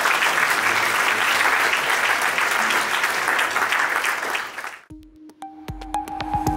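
Audience applauding. The applause cuts off about five seconds in, and electronic music with steady tones and sharp clicks starts near the end.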